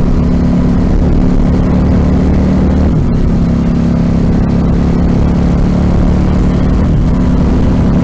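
KTM RC8 1190 V-twin sportbike engine running at steady cruising revs, with a brief dip in pitch about three seconds in.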